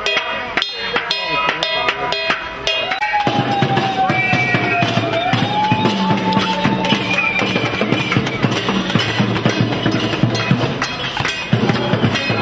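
Hand-held cooking pots banged over and over as protest noise, each strike clanging and ringing, for about three seconds. The sound then changes abruptly to a dense, drum-heavy din with a long sliding tone.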